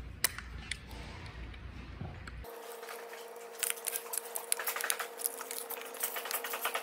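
Hands and a small hand tool working at plastic wiring connectors on EV battery modules. There is a low rumble with an occasional sharp click, then from about two and a half seconds in a run of quick, light plastic clicks and rattles over a faint steady hum.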